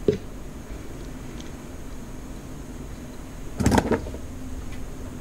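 A short, loud knock-and-rustle about three and a half seconds in as a box is set down over a Rubik's cube on a mat, over a faint steady hum.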